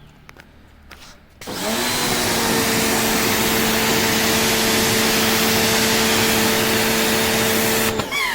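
Electric car pressure washer starting up about a second and a half in: its motor and pump spin up with a brief rising whine, then run at a steady hum over the hiss of the spraying water. It cuts out shortly before the end.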